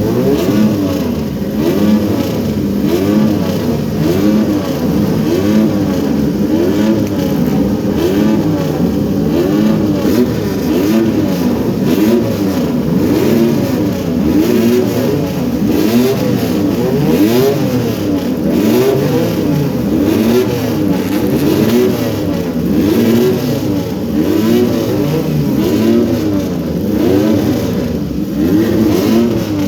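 Several Triumph three-cylinder motorcycle engines revving together, their pitches rising and falling over one another without a break.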